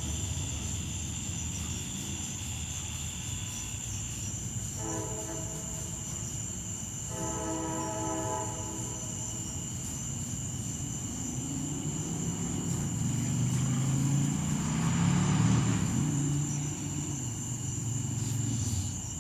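Train horn sounding two blasts of about two seconds each, around five and seven seconds in. A low locomotive engine rumble then builds and is loudest about three-quarters of the way through, over steady high chirring of night insects.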